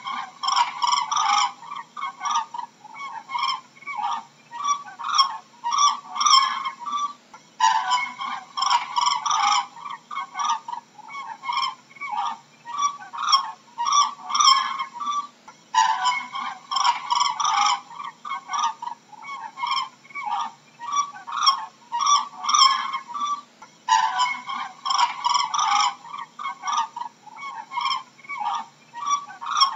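Cranes calling: a quick series of short calls, several a second, with a louder burst of calling about every eight seconds as the same stretch of calls repeats.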